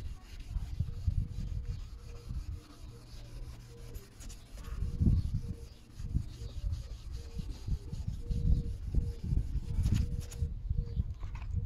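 A gloved hand rubbing a Subaru Impreza's plastic headlight lens in repeated strokes, restoring a hazy, heat-damaged lens. An uneven low rumble runs underneath.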